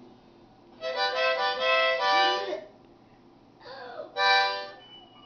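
A harmonica blown by a child in two bursts of chords: one about a second in that lasts nearly two seconds, and a shorter one near four seconds.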